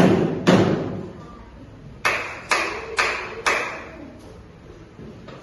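Two heavy slaps on a table, then a run of about five sharper hand claps at roughly two a second. The sounds form a place-value code: table slaps for hundreds, claps for tens, here signalling 455.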